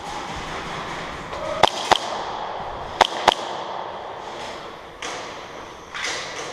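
Airsoft guns firing: two pairs of sharp, quick shots, the first pair a little over a second and a half in, the second about three seconds in.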